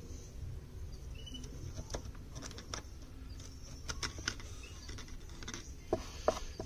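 Small screwdriver scraping and picking carbon deposits out of the clogged exhaust port of a Stihl FS 260 brushcutter's two-stroke cylinder, giving faint scratchy ticks at irregular intervals. The carbon build-up, which the mechanic blames on poor-quality two-stroke mix oil, is what robbed the engine of power.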